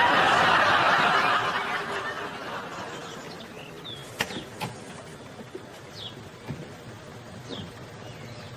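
Studio audience laughing, loud at first and dying away over about three seconds. Faint bird chirps are heard later.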